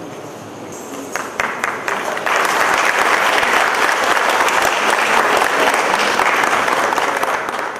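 Audience applauding: a few scattered claps over crowd murmur, building about two seconds in to full, steady applause.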